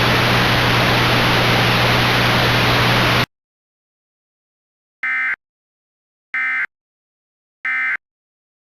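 Radio static hiss with a low hum, cut off abruptly about three seconds in. Then three short, identical data bursts about a second apart: the Emergency Alert System end-of-message (EOM) SAME tones that close the alert.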